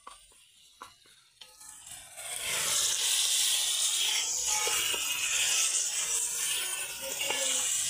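Chicken pieces and fried onions sizzling in an aluminium pot as they are stirred with a wooden spoon. A few faint knocks come first, then a loud, steady sizzle starts about two seconds in.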